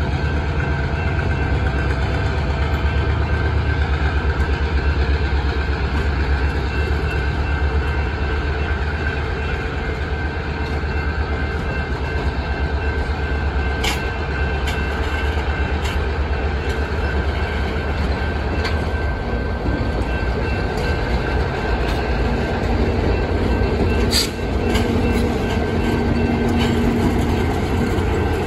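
Vintage passenger coaches rolling slowly past: a steady rumble of wheels on rail, with two sharp clacks from rail joints about halfway through and again near the end. A low steady hum comes in near the end as the diesel locomotive at the rear of the train draws near.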